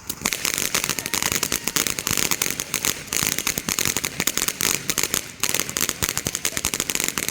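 Firework crackling: a dense, rapid stream of sharp pops that starts suddenly just after the beginning and keeps going, easing briefly a little past five seconds.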